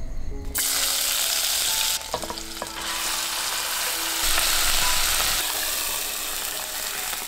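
Flaked fish frying in hot oil in a wok, a steady loud sizzle that starts about half a second in and changes level a couple of times.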